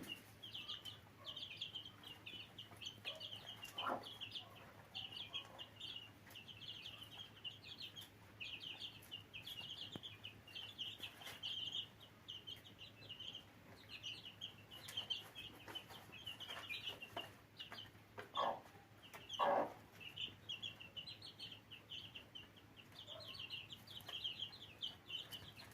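Newly hatched chicks in an incubator peeping without pause in short, high cheeps. A few soft knocks come through, the loudest two a little past the middle.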